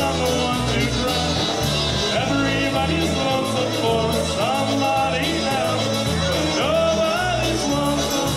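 Live polka band playing dance music, with a bass line stepping between notes on a steady beat under the melody.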